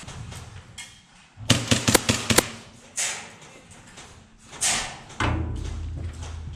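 A quick run of sharp clicks and knocks about a second and a half in, followed by two short bursts of rustling noise and then a low rumble.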